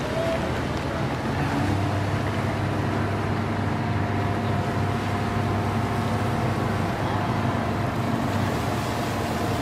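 Water churning and washing in the wake of a barge that has just been side-launched into a river, with wind noise on the microphone and a steady low hum.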